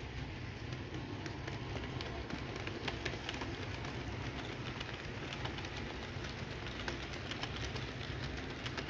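Electric model train running past: a steady low motor hum, with many quick clicks from the wheels over the track joints.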